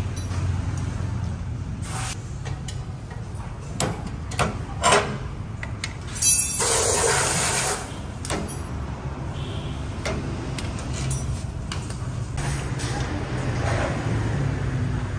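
Metal tool clicks and clinks on a Yamaha NMAX 155 scooter's CVT clutch as the clutch housing is refitted and its centre nut tightened with a wrench against a holder tool, over a steady low workshop hum. A loud rushing hiss lasts about a second just past the middle.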